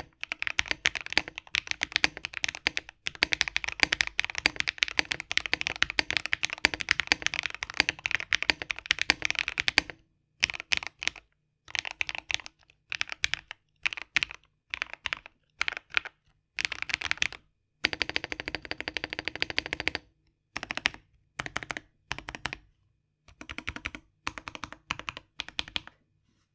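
Typing on a Keychron K12 mechanical keyboard with AKKO Blue Snow Grey switches lubed with SuperLube, PBT keycaps and foam in the case, giving a poppy, clacky keystroke sound. A fast, unbroken run of keystrokes for about ten seconds, then short bursts of typing separated by brief silences.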